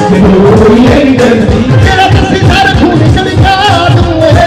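Live Punjabi song played loud through a stage PA system: a male singer's voice over a fast, steady beat.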